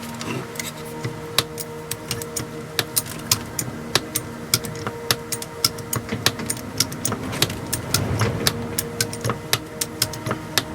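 Sharp metal clicks and knocks from hands-on work on a hydraulic trolley jack, about two to three a second and irregular, over a steady low hum.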